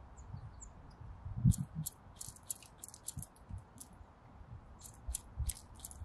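Great spotted woodpecker pecking and cracking seeds at a hanging bird feeder: quick, irregular sharp ticks and crunches with soft low knocks. The pecking is sparse at first and busiest from about a second and a half in.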